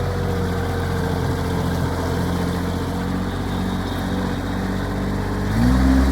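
Bobcat MT55 mini skid steer's Kubota diesel engine running steadily at low speed, then revving up to a higher, louder speed about five and a half seconds in.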